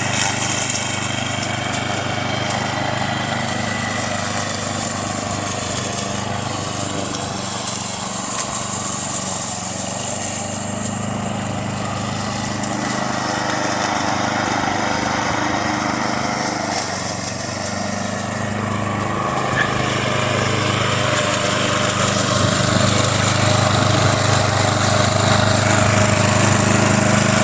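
Pull-start gasoline walk-behind lawn mower engine running steadily as the mower is pushed back and forth over grass, getting somewhat louder in the last third.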